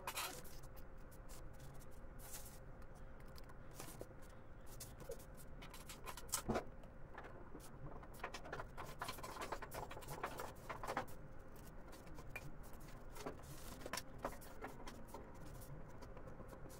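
Faint clicks and scrapes of metal carburetor parts and hand tools being handled, with a few sharper clicks about six and a half seconds in and a busier run of them around nine to eleven seconds.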